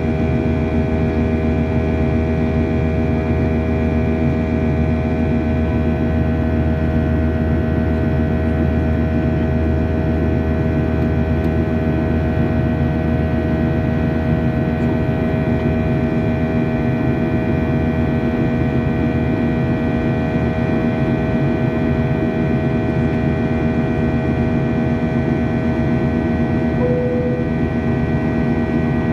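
Airliner cabin noise in flight: a steady drone of engines and rushing air with a constant hum of several steady tones. A brief beep sounds near the end.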